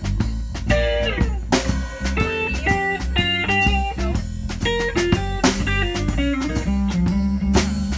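Small blues band playing live: an electric guitar plays an instrumental lead of single notes, with bent notes about a second in, over electric bass and a drum kit.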